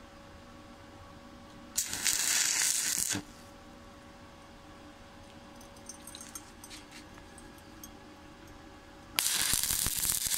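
Stick (SMAW) welding arc crackling and sizzling twice, each for about a second and a half, as short tack welds are laid on a lap joint of two overlapping steel plates; a faint steady hum and a few light ticks between the two welds.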